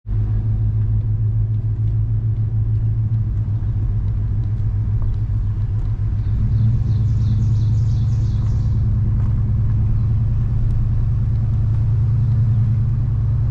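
Chevrolet Suburban driving slowly, a steady low rumble of engine and tyres that grows a little louder about halfway through.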